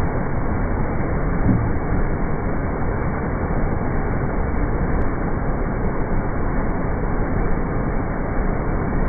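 Water pouring over a low concrete dam and churning into whitewater at its foot: a steady rushing noise, heaviest in the low end.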